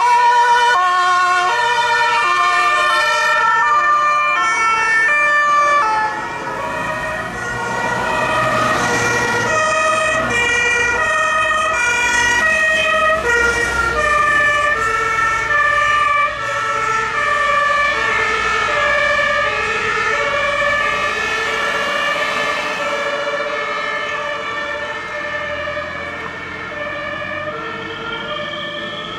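Several German two-tone emergency-vehicle sirens (Martinshorn) sounding at once, each switching back and forth between two notes and out of step with the others, over the noise of vehicles driving by. The sirens slowly fade near the end.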